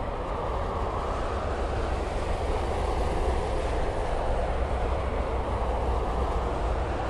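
Steady tyre and engine noise of multi-lane interstate traffic, with cars, a tractor-trailer and school buses passing at highway speed. It grows a little louder through the middle as vehicles pass in the near lanes.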